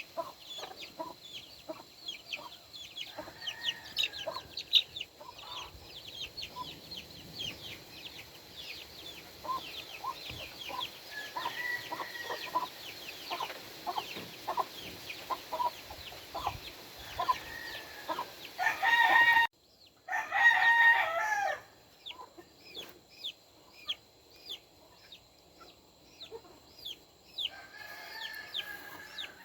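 Game roosters crowing, several faint ones spread through and one loud, close crow about two-thirds of the way in, over a steady busy mix of clucks and short high chirps.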